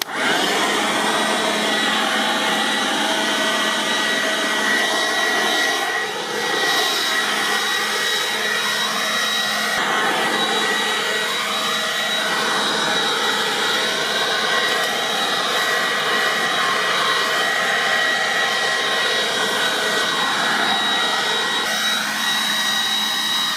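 Ozito 18V cordless leaf blower running steadily at full speed: a rushing of air with a high, even electric-fan whine, the tone wavering a little as it goes.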